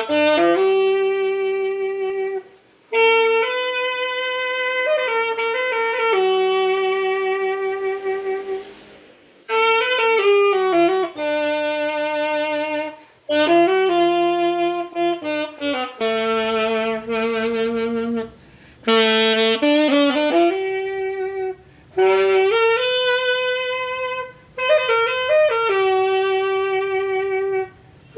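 Instrumental music: a single melody line played in phrases of a few seconds, each separated by a short pause.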